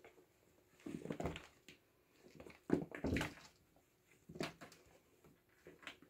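Two kittens scuffling as they wrestle: a few irregular soft bursts of scrabbling and bumping from their paws and bodies against a hard windowsill and a carpet mat.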